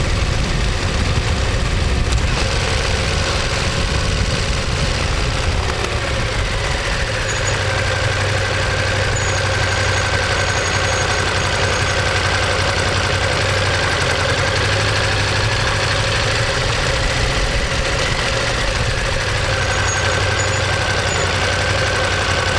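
Ducati Monster 1200S's L-twin engine and exhaust running steadily at an even pitch.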